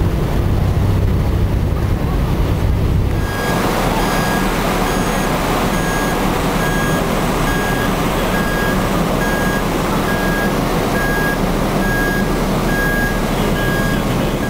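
A low rumble for about three seconds, then a high electronic warning beep repeating about once a second over steady background noise.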